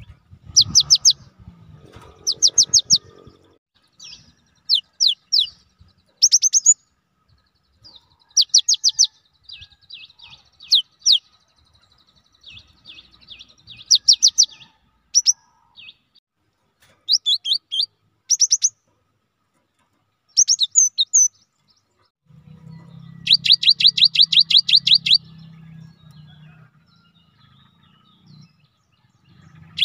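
Cinereous tit (gelatik batu) singing: short bursts of quick, high, repeated whistled notes with pauses between them. Near the end comes a longer, fast run of evenly repeated notes lasting about two seconds.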